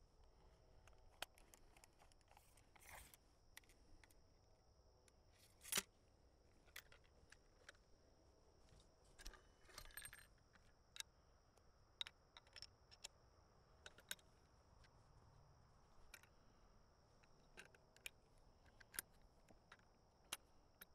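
Near silence with scattered faint clicks and metallic taps, the loudest about six seconds in: a Peabody falling-block rifle handled as it is loaded and brought to the shoulder. A faint steady high tone runs underneath.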